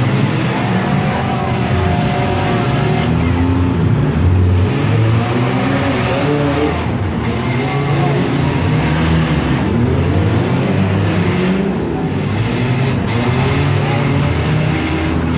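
Several demolition derby car engines revving up and down at once, their pitches rising and falling over one another in a loud, continuous mix.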